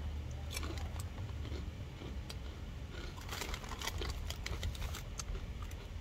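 Chewing crunchy snack chips close to the microphone: a scatter of short crunches over a steady low rumble.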